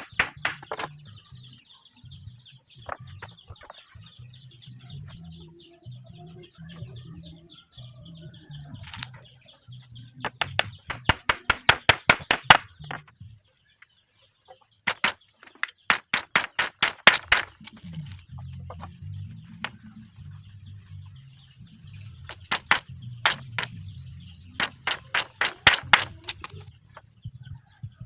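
Three runs of rapid, sharp knocks, about six a second, with pauses between them, over faint high chirping.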